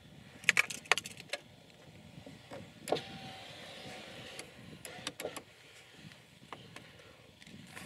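A lion crunching and gnawing on a bone: a series of sharp cracks and clicks, most of them in the first second and a half. About three seconds in, a faint steady mechanical whine runs for a second or so.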